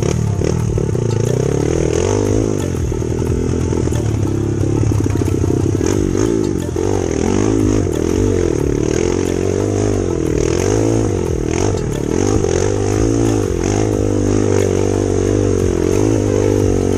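Kawasaki KLX trail bike's single-cylinder four-stroke engine, revving up and dropping back over and over while ridden off-road, with clattering and scraping knocks throughout.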